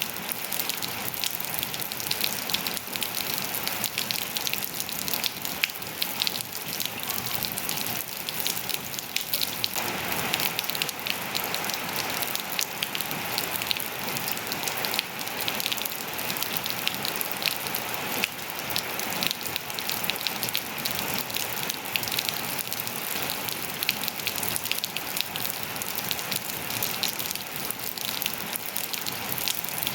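Steady rain falling on surfaces, a dense hiss with many individual drops ticking close by. It grows a little fuller about a third of the way in.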